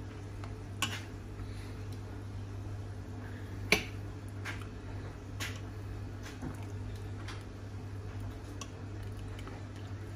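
Metal serving spoons clinking and scraping against a stainless steel pot while beef stew is spooned out, with a wet squelch of the stew. Several separate clinks, the loudest about four seconds in.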